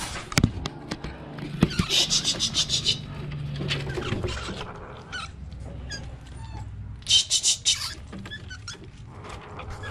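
Mongoose and rat in a wire-mesh cage: a couple of sharp knocks in the first two seconds, then two quick runs of high, rapid chittering, each about a second long, around two and seven seconds in.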